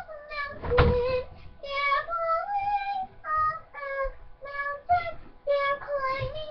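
A child singing a tune in short held notes, one after another.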